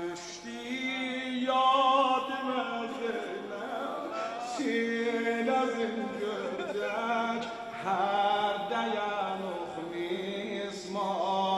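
A man's solo voice chanting a Shia mourning lament (mersiye) in long, drawn-out notes that bend and waver, pausing briefly between phrases.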